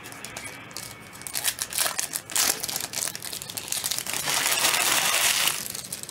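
Wrapper of a basketball trading card pack crinkling and tearing as it is ripped open. There is irregular rustling, then a longer continuous rip about four seconds in.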